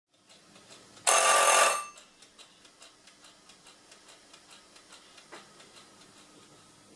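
A loud, harsh buzz for under a second, about a second in, then steady clockwork ticking about four times a second, like a running mechanical kitchen timer. It falls as the steamer-blender's cooking cycle ends.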